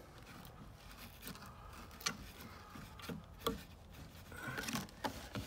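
A new rubber raw water pump impeller being twisted and pushed into the metal pump housing of an Indmar marine engine, spun in its direction of rotation so the lubricated fins fold into place: soft rubbing and scraping with a few sharp clicks, the loudest about two and three and a half seconds in.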